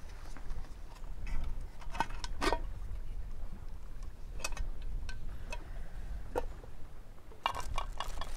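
Metal camping cookware being handled and set down on rock: scattered clinks and knocks of pots, lids and a small handled cup, with a quick run of clinks near the end, over a steady low rumble.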